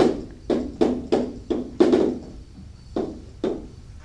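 Chalk strokes against a blackboard while writing: a run of short, sharp taps, about six in the first two seconds and two more about three seconds in.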